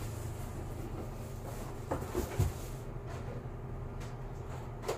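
A large cardboard shipping box being handled and set aside: a few soft knocks and scrapes, two close together about two seconds in and one near the end, over a steady low room hum.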